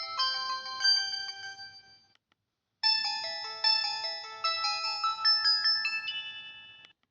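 Samsung B130 mobile phone ringtones: one melody fades out about two seconds in, and after a short gap of silence another tune starts, a quick run of notes with several sounding at once, which dies away near the end.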